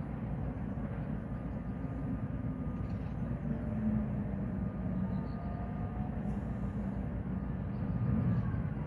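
Steady low rumble of distant heavy machinery, with faint whines gliding up in pitch around the middle.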